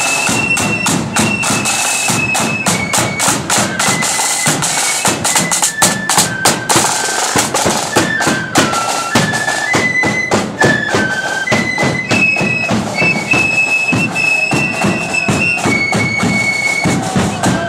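Marching band playing a tune in held high notes over rapid snare and bass drumming.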